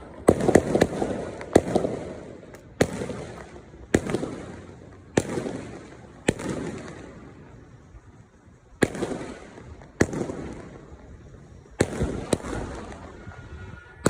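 Fireworks going off in a steady series: a sharp bang about every second, each followed by a rumbling echo that fades, with a short lull past the middle.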